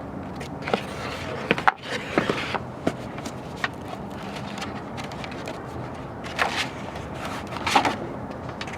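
Handling noises: scattered sharp clicks and knocks with a few short rustling bursts over a steady background hiss.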